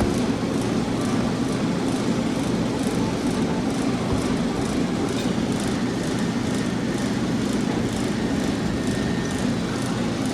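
Steady mechanical rumble with a faint, regular high ticking about twice a second.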